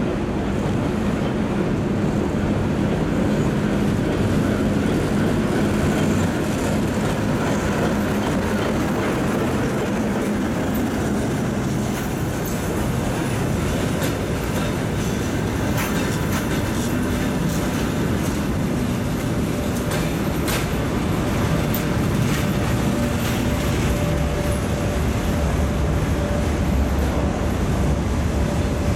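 A TEM18D diesel-electric shunting locomotive's engine running steadily as it passes at low speed, hauling a train of mail cars. The cars' wheels then roll by with scattered clicks over the rail joints.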